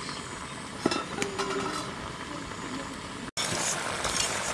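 A metal lid lifted off a steaming karahi, with a single clink about a second in; after a sudden cut, papaya curry simmering and bubbling in the pan, louder and hissier.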